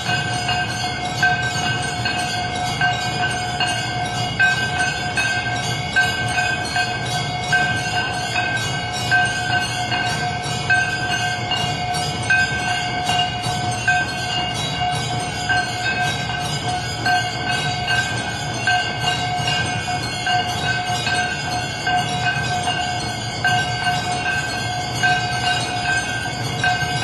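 Bells ringing continuously: a sustained ringing tone re-struck about every second and a half, over a jingling shimmer.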